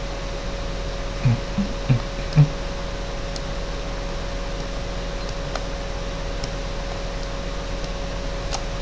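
Steady room noise with a low electrical hum and a constant mid-pitched tone. Four short low thumps between about one and two and a half seconds in, and a few faint clicks scattered through.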